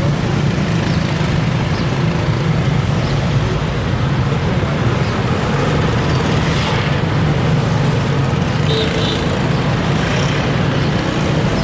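Steady street-market background noise with motor traffic: a continuous low hum under an even din, with no single event standing out.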